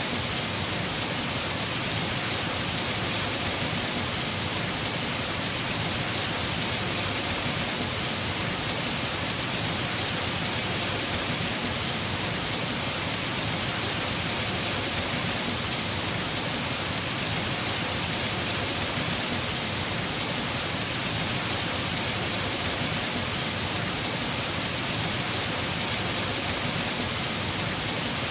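Heavy rain falling steadily on a house roof: a dense, even hiss without any change or break.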